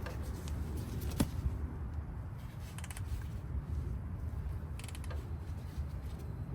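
Torque wrench tightening the wheel hub bolts to 133 ft-lb, creaking under load, with a few sharp clicks: about a second in, near three seconds and near five seconds.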